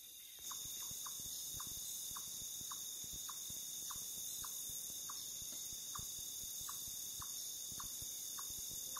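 A steady high-pitched insect chorus of crickets, with a short chirping note repeating about every half second. Everything gets louder about half a second in.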